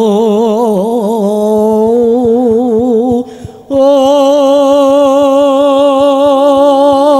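A man singing a Javanese dalang's suluk (wayang mood song) in a solo voice, a long wavering line with heavy vibrato. He breaks for breath about three seconds in, then holds one long note.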